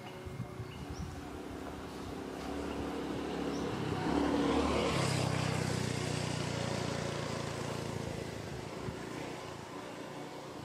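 A motor vehicle passing by, growing louder to a peak about halfway through and then fading away.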